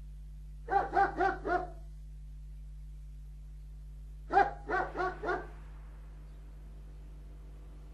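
A dog barking in two runs of four quick barks, about three seconds apart, over a steady low hum.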